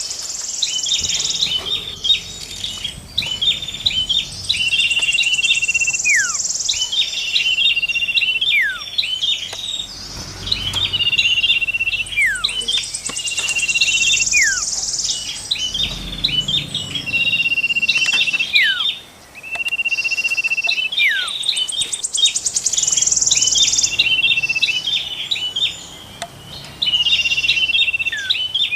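Small songbirds singing a bird-lure medley of common iora, prinia and warbler songs: a held whistle about a second long, a sharply falling whistle, quick sharp notes and buzzy high trills, repeating over and over.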